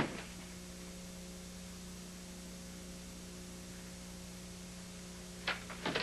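Steady low electrical hum with a light hiss. A sharp click comes at the very start and a few short clicks near the end.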